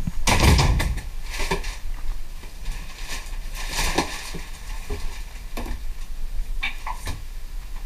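Clothing being pulled down off the back of a door: fabric rustling with knocks and clatter from the door and its fittings, in irregular bursts, the loudest about half a second in.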